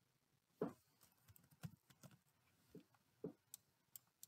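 A handful of faint, separate computer keyboard keystrokes, about six spread over a few seconds, with near silence between them.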